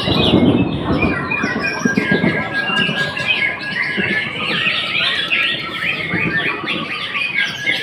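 White-rumped shamas (murai batu) singing over one another: a dense, unbroken run of quick whistles, chirps and trills.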